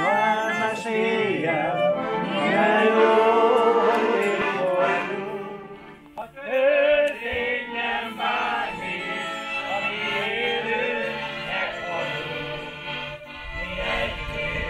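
A mixed group of men and women singing a folk song together, accompanied by a fiddle. A low rumble joins near the end.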